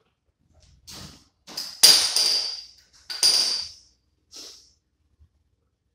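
Metal-on-metal clanks from the front hub assembly as it is being taken apart. Two sharp strikes, one about two seconds in and one a little past three seconds, each ring on briefly at a high pitch, with lighter knocks before and after.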